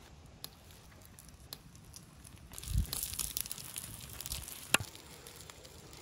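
Pieces of raw fat sizzling on a hot stone slab over a wood fire. The crackly sizzle starts about halfway in, with a low thump as it begins and a sharp click near the end.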